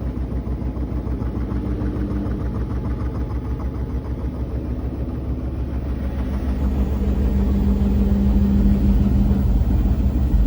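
Koenic KWM 8212 A INV top-loading washing machine spinning at 1000 rpm with a 7 kg load: a steady low rumble with a fast throb and a hum, growing louder about seven seconds in.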